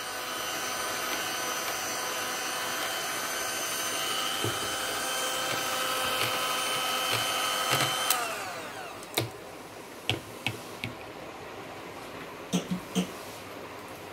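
Hand-held electric mixer running steadily with a whine as its beater stirs viscous gel base in a plastic beaker. About eight seconds in it is switched off and its pitch falls as the motor spins down. A few sharp knocks and clicks follow.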